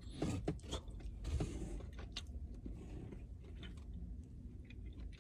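Chewing crunchy boneless fried chicken: scattered soft crunches and mouth clicks, busiest in the first couple of seconds.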